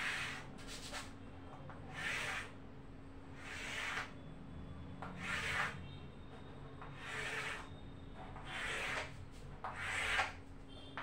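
Repeated scratchy writing strokes, something drawn across a writing surface about eight times, each stroke about half a second long and roughly one and a half seconds apart, over a faint steady hum. It is the sound of the ledger layout of an account being drawn out by hand.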